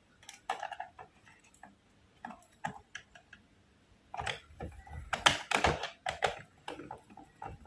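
Irregular small plastic clicks and taps from a laptop's case and parts being handled, sparse at first, then a denser, louder run of clicks from about four seconds in.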